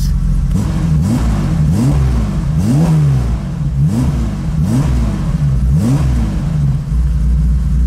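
BMW M30B35 3.5-litre straight-six on individual throttle bodies, heard at the tailpipe of its new full exhaust, blipped about six times, roughly once a second, each rev rising quickly and dropping back, then settling to idle near the end. It is running very rich on an untuned standalone ECU, and the owner takes its uneven sound for being down on a cylinder, with two throttle bodies out of sync and getting no air.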